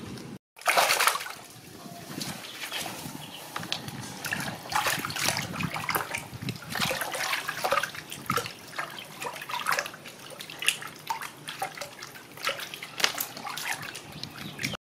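Water splashing and sloshing in a plastic basin as hands rub and rinse raw chicken feet, with many irregular small splashes and drips and a louder splash about a second in.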